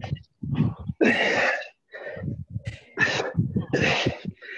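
Forceful, breathy exhalations and grunts from someone working hard through sit-ups, coming about once a second.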